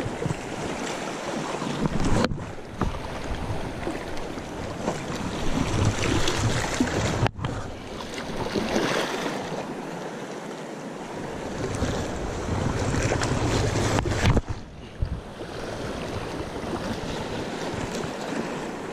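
Small waves lapping and sloshing in shallow sea water, with gusty wind rumbling on the microphone.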